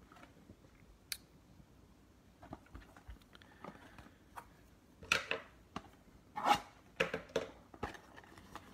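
A cardboard trading-card blaster box being handled and torn open by hand: a sharp click about a second in, then a run of short scraping, rustling rasps of cardboard and packaging from about five seconds in.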